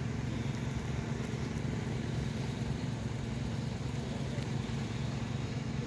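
An engine idling steadily: a low, even drone that does not rise or fall.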